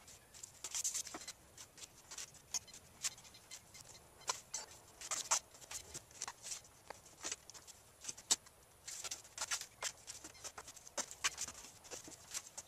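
Blue masking tape being pulled off the roll in short strips, torn off and pressed onto foam board: a run of quick crackling rips with short pauses between them.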